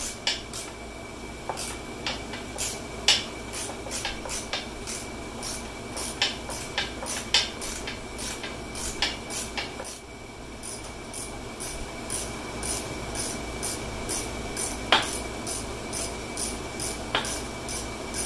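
Hand ratchet and socket clicking in quick runs as a bolt is run in on a steel side-step bracket, with a few louder metal clinks.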